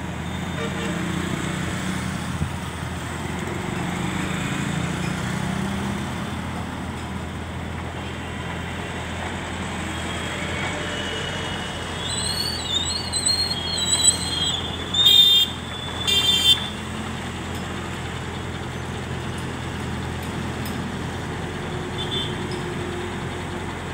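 JCB 30Plus mini excavator's diesel engine running steadily while it digs. About halfway through a wavering high tone is heard, then two short vehicle-horn honks a little over a second apart.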